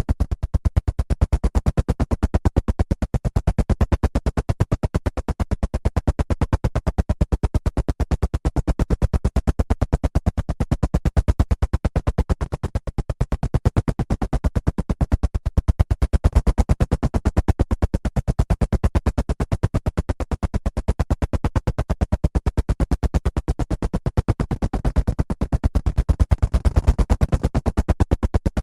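Helicopter main rotor chopping in flight: a rapid, perfectly even beat of blade slaps over engine noise, swelling slightly now and then.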